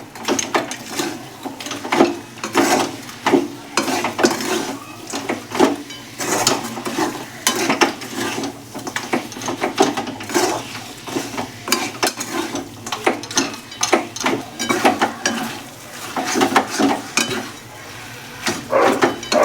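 A spoon or spatula stirring thick turmeric halwa in a pan, scraping the pan's bottom in irregular strokes about one or two a second, with a light sizzle of ghee over low heat. The halwa is being mixed until the jaggery melts into it.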